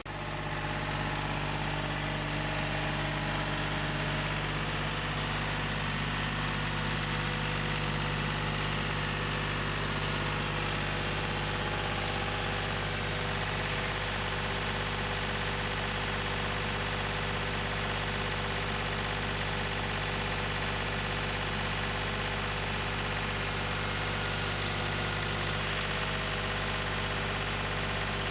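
An engine running steadily at a constant speed, with no revving or changes in pitch.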